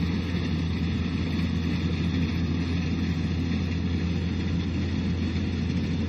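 Kubota DC-70 combine harvester's diesel engine running steadily while harvesting rice, a continuous low drone with a mechanical hum over it.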